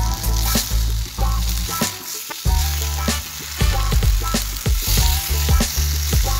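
Rolled flatbreads sizzling as they fry in a nonstick pan, with a metal fork scraping and turning them in short strokes. Music plays underneath, its bass dropping out briefly about two seconds in.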